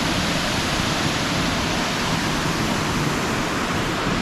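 Waterfall in flood pouring into the pool at its base: a steady, loud rush of falling water. The water is coming down hard and fast after heavy rain.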